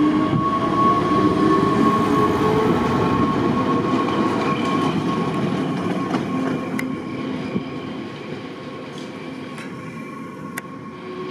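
Metre-gauge electric TMR Mont Blanc Express train passing close by and running away along the track: steady rolling noise with a thin high whine, fading as it moves off. A couple of sharp clicks come from the wheels late on.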